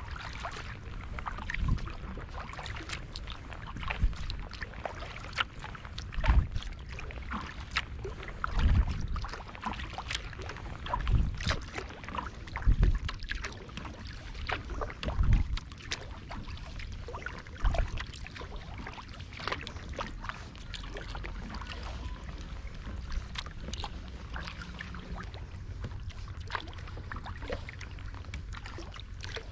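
Kayak paddling: the double-bladed paddle dipping and pulling through the water about every couple of seconds, each stroke with a splash and drips, over a low steady rumble. The strokes grow softer after about eighteen seconds.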